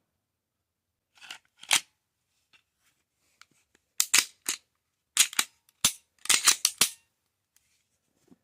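Glock 19 pistol being handled after cleaning: a string of sharp metallic clicks and clacks, two about a second and a half in, then a quick run of them between about four and seven seconds.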